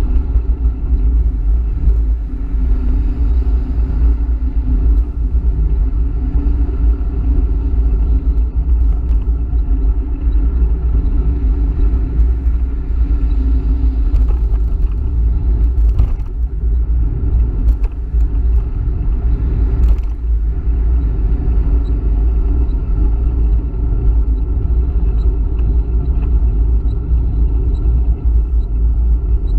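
Steady low rumble of wind and road noise on a camera riding a moving electric bicycle along a highway shoulder, with highway traffic passing alongside.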